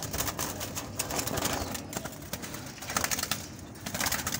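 Wire bird cage being handled, with a run of light clicks and rattles from the wire bars as a hand works at it, doves moving about inside.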